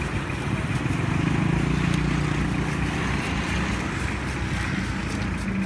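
Steady street traffic noise with a vehicle engine humming, swelling a little about a second in. Faint scraping ticks of a hand shredder near the end.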